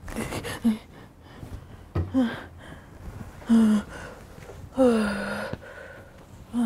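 A person moaning and whimpering with gasping breaths, in several short cries that fall in pitch, the longest a drawn-out moan near the end, like someone in the grip of a nightmare.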